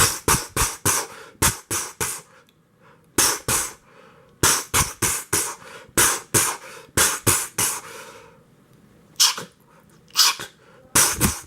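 A person imitating automatic gunfire with their mouth: bursts of rapid, sharp spitting "shots", several to a burst, with short pauses between the bursts.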